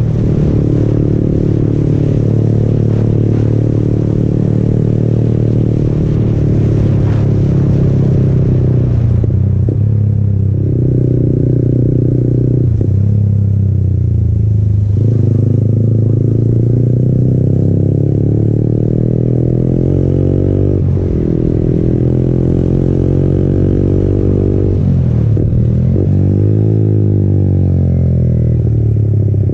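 Yamaha MT-15's 155 cc single-cylinder engine running through an aftermarket Akrapovic exhaust, heard from the rider's seat on the move. Wind rush is strong at first and fades as the bike slows and shifts down. After that the engine note drops and rises several times with the gear changes and throttle on the bends.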